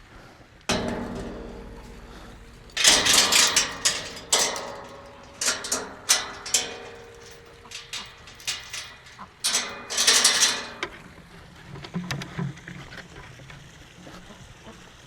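A sharp knock that rings and dies away over about two seconds, then runs of loud clattering knocks and rattles with single clicks between them, strongest around three seconds in and again around ten seconds in.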